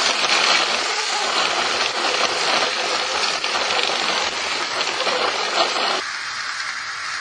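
Model tram running along its track: a loud, steady rushing noise from its motor and wheels on the rails. The deeper part of the sound cuts off abruptly about six seconds in.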